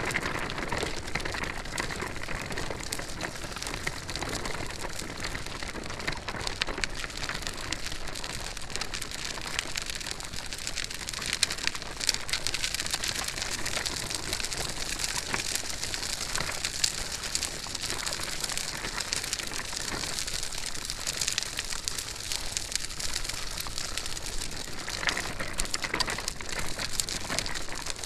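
Stroller wheels rolling steadily over the ground as the stroller is pushed, a continuous gritty crackle of many tiny clicks.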